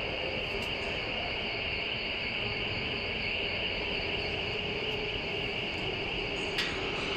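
Steady factory machinery noise: an even hiss with a bright high-pitched band in it. One sharp click comes near the end.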